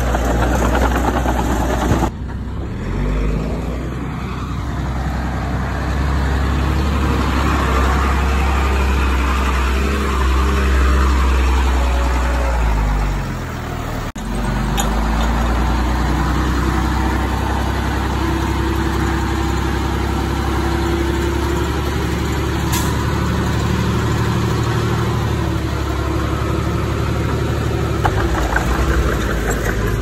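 Diesel engine of heavy earthmoving machinery running, its engine speed rising and falling. The sound changes abruptly about two seconds in and again about halfway through.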